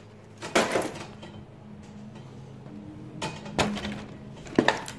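Thin plastic bag crinkling in a few short bursts as it is handled and filled, over a low steady hum.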